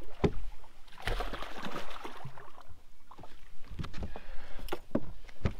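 Hooked largemouth bass splashing at the surface, the splash strongest about a second in, before it is swung up out of the water on the line. Scattered short knocks and clicks run through it.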